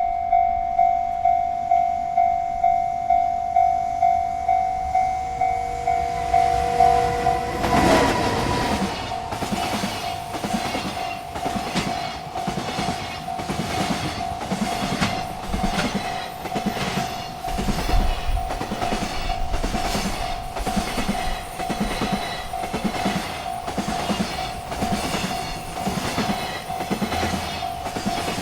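Railroad crossing bell ringing steadily, about two strikes a second. About a quarter of the way in a freight train arrives with a sudden rush, and its wheels then clack rhythmically over the rail joints as the cars pass, with the bell still sounding underneath.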